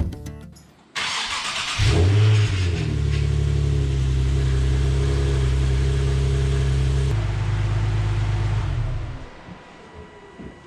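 Nissan 370Z's V6 engine being cranked by the starter, catching just before two seconds in with a short rev, then idling steadily. It is the first start after a clutch rebuild. The sound changes at about seven seconds and the engine stops around nine seconds.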